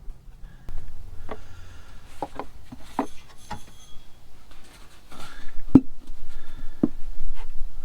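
Irregular clicks and knocks from handling a plastic gear-oil bottle and its filler nozzle while topping up a gearbox, with one sharper knock about six seconds in.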